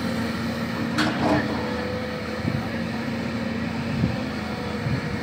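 LiuGong 939E excavator's diesel engine running steadily under load while the bucket digs into sand, with one sharp clank about a second in.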